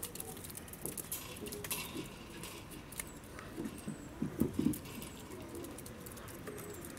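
A crowd of Humboldt penguins shuffling on wet concrete: scattered pattering taps and clicks of their feet, with a short cluster of low penguin grunts about four and a half seconds in, the loudest part.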